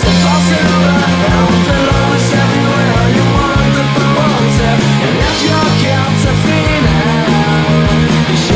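Rock music with distorted electric guitar, bass and drums at a steady beat.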